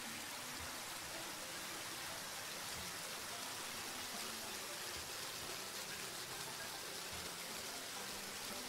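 Water hose spraying a steady jet of water: a continuous, even hiss of spray.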